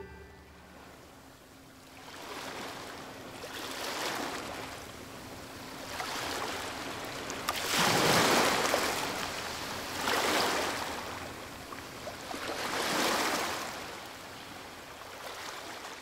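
Ocean surf: rushing washes of noise that swell and fade every two to three seconds, like waves breaking and drawing back, the strongest about halfway through.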